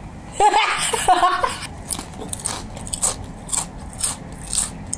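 Crisp crunching and chewing of thin black ghost pepper potato chips, about two or three crunches a second, after a brief giggle in the first second.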